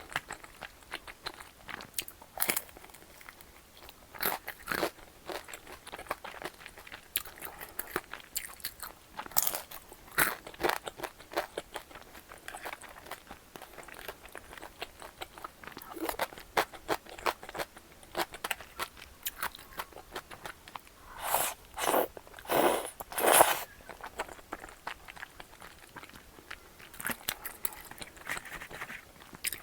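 Close-up eating sounds from a tteokbokki meal: chewing and crunching, with many short clicks throughout and three or four louder bites a little over two-thirds of the way in.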